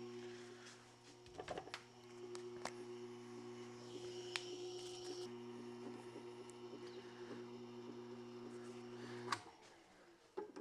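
Tormek T-8 sharpener's motor running with a steady hum while a knife is honed on the CBN wheel, with a few light clicks. It is switched off with a click about nine seconds in, and a couple of small knocks follow.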